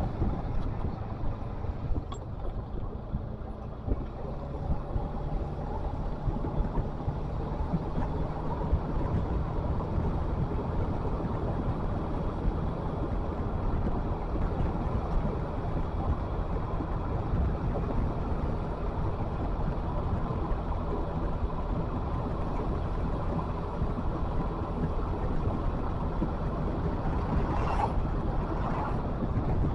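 A motor running steadily, heard as a low rumble with faint steady tones and some wind noise.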